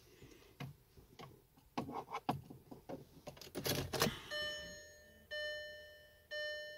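Keys clicking and rattling at the ignition, then from about four seconds in the Skoda Octavia's dashboard warning chime sounds, a ringing tone repeating about once a second, each stroke dying away.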